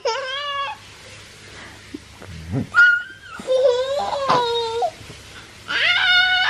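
Young child squealing and laughing in play: several high-pitched calls with short pauses between them.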